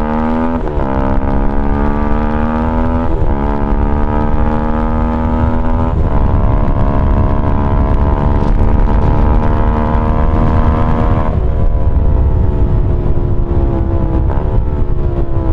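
Keeway RKF 125's single-cylinder engine through a GPR Deeptone exhaust with the dB killer removed, pulling through the gears. The pitch climbs and drops back at upshifts about half a second, three seconds and six seconds in, holds steady, then falls away about eleven seconds in as the throttle eases off.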